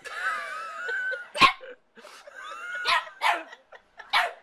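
A dog whines in a wavering, gliding pitch for about a second, then barks four times.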